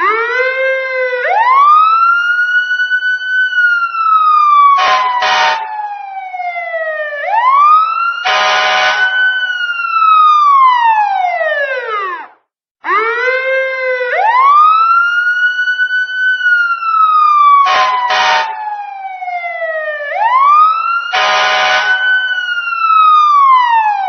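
Police siren sounding a slow wail, each cycle climbing quickly and sliding down over several seconds, with two short blasts of a horn over it. The sequence cuts out briefly about halfway and repeats.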